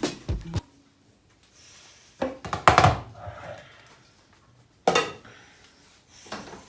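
Kitchenware clattering as food is dished up: a quick run of knocks about two to three seconds in, then a single sharp knock about five seconds in.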